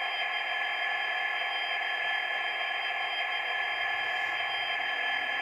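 Model Class 92 electric locomotive running on the track, a steady electric whine and hiss with high fixed tones, from its motor and sound decoder.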